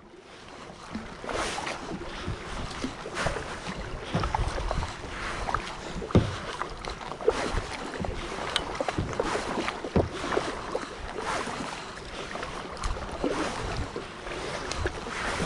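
Kayak paddling: a double-bladed paddle dipping and pulling through calm water, splashing and dripping at about one stroke a second, with an occasional light knock.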